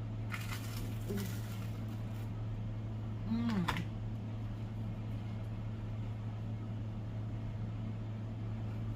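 A person eating a toasted peanut butter sandwich: crackly crunching of the toast in the first two seconds, then a short voiced "mm" about three and a half seconds in, over a steady low hum.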